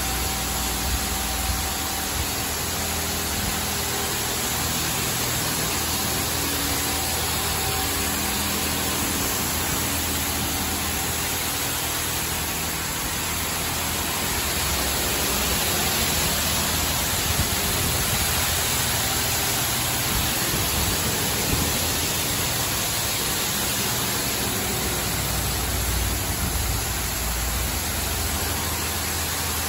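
LaserWash M5 touchless car wash blasting high-pressure water jets over a car: a steady hiss of spray with a low machine hum beneath it. It grows a little louder in the middle stretch, as the spray arm passes close.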